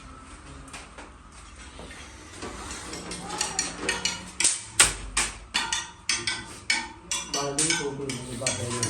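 A quick run of sharp knocks and clicks of hard objects being handled, about three a second, starting a couple of seconds in, with voices mixed in near the end.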